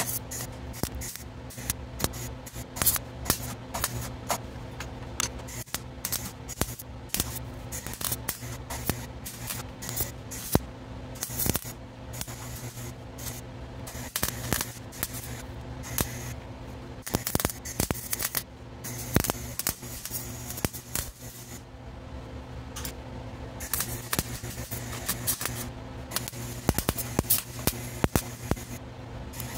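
Electric arc welding on thin steel body panel: the weld arc crackles and sputters in short runs with brief pauses, as the rusted lower body of a 1962 Willys station wagon is stitch-welded to a patch panel.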